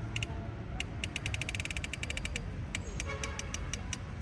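A series of sharp clicks, with a fast, even run of about ten a second in the middle, over a low steady hum.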